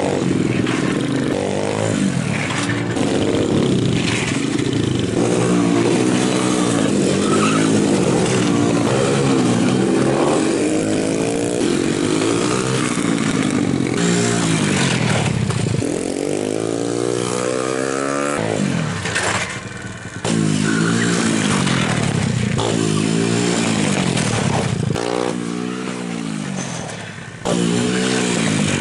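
Small motorcycle engine revving up and easing off again and again as the rider brakes, slides and accelerates through tight turns. The engine sound drops away briefly twice in the second half before the throttle opens again.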